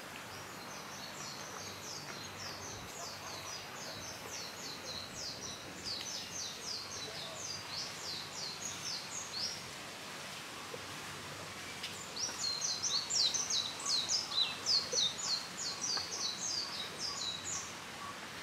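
A small bird singing a fast series of high, sharp chirps, several a second, in two bouts with a short pause between them. Steady outdoor background noise runs underneath.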